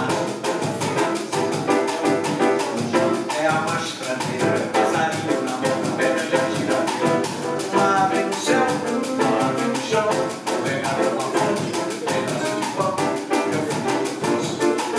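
Live bossa nova on a grand piano, with a drum kit keeping a quick, even rhythm underneath.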